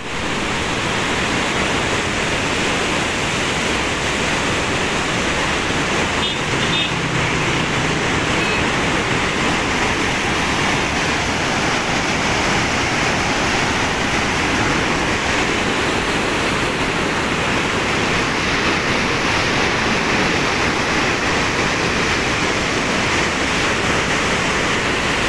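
River floodwater rushing through the fully opened spillway gates of a barrage, a loud, steady rush of churning water.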